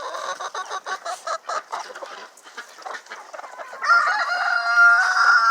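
A flock of chickens clucking with many short calls, then about two-thirds of the way in a rooster crows, one long loud call that is the loudest sound.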